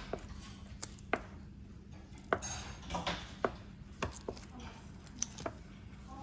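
Stiff card scraping etching ink across a copper plate on a glass slab, with irregular sharp clicks and taps as its edge drags over the plate and knocks against the plate and glass, about ten in six seconds.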